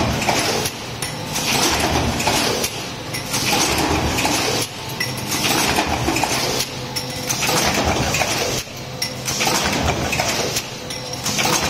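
Stamping press running a multi-station progressive die, a continuous metallic clatter and clinking that swells and dips in a regular cycle about every two seconds.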